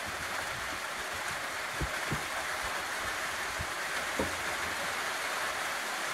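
Steady background hiss, with a few faint soft knocks about two seconds in and again about four seconds in.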